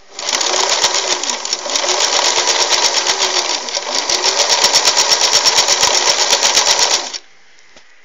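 Singer 533 sewing machine running at speed, stitching a zigzag seam through fabric: a fast, even clatter of needle strokes, about seven a second. It slows briefly twice, then stops abruptly near the end.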